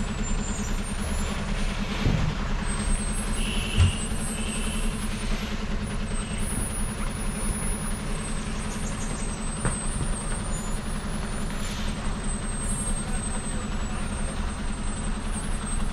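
Heavily loaded Ashok Leyland truck's diesel engine running steadily, with a couple of knocks about two and four seconds in.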